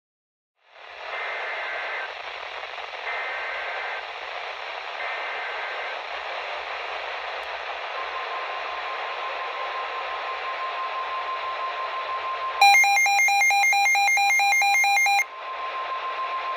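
NOAA Weather Radio broadcast over radio static: three one-second bursts of the EAS SAME data header, then the steady 1050 Hz weather radio alert tone from about eight seconds in. About twelve and a half seconds in, a louder electronic beeping pattern sits over the tone for about two and a half seconds, then stops.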